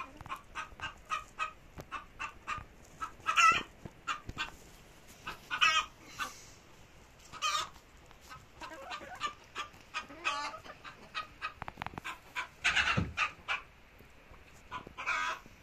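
A flock of Leghorn chickens clucking: a steady run of short clucks with several louder calls scattered through.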